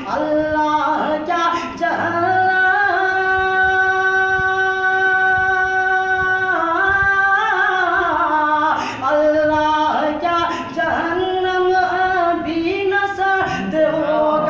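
A young man singing a naat, an Urdu devotional poem, solo and unaccompanied, in ornamented, gliding phrases. He holds one long note from about three seconds in to about six and a half.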